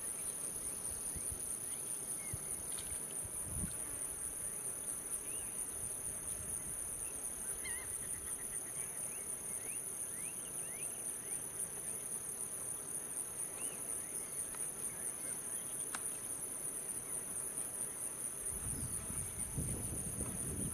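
Steady, high-pitched insect chorus, with a few faint short chirping calls in the middle and a low rumble near the end.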